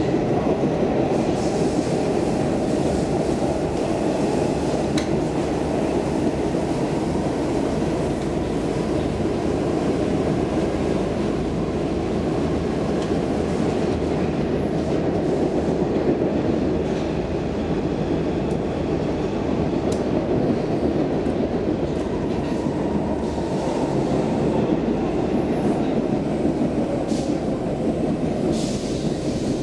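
Stockholm Metro C14 subway car running through a tunnel, heard from inside the car: a steady, loud rumble of wheels on rail and running gear, with a few faint clicks.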